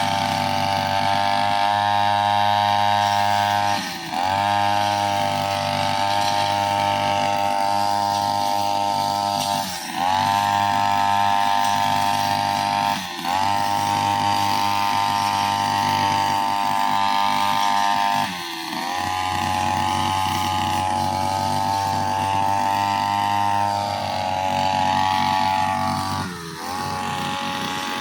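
Brushcutter's two-stroke engine running at high revs with a bladed cutting head. Its note dips briefly about five times and picks back up each time.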